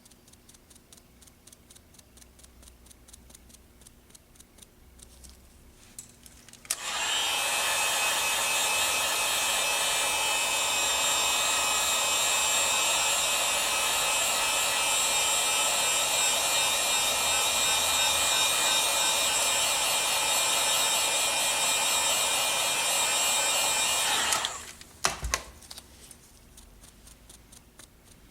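Hair dryer switched on about seven seconds in, running steadily with a motor whine for about seventeen seconds while drying a fresh coat of leather dye, then switched off, followed by a couple of clicks.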